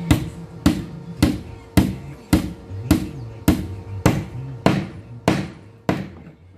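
Steady hammer blows on a steel flat strip bolted to a plywood panel, eleven sharp strikes at an even pace of a little under two a second, each with a short ring.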